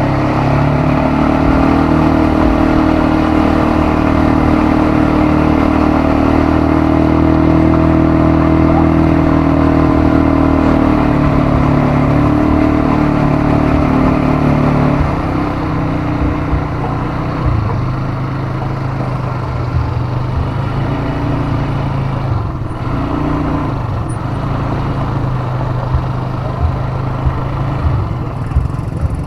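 ATV engine running at a steady pitch, dropping to a lower, less even note about halfway through.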